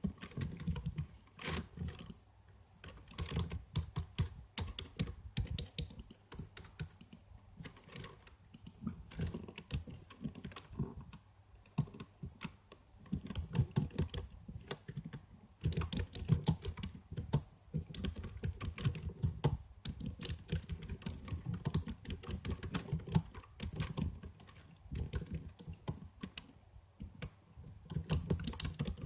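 Typing on a computer keyboard: quick runs of key clicks in bursts, with short pauses between them.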